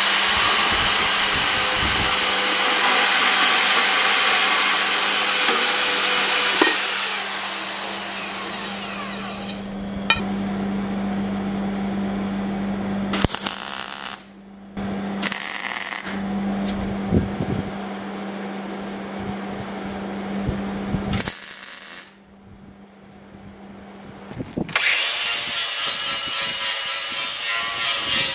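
A run of metalworking sounds on steel square tubing. First a portable band saw cuts the tubing, with a steady hum under it, and winds down after about seven seconds. Then come several short bursts of welding, and about 25 seconds in a cordless angle grinder starts grinding the welded railing.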